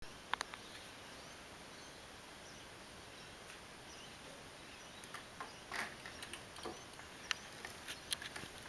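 Faint background hiss with a few faint, short bird chirps, and scattered light clicks and taps, most of them from about five seconds in.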